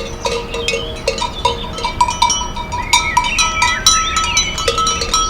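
Several livestock bells clanking irregularly at different pitches, as from a grazing flock.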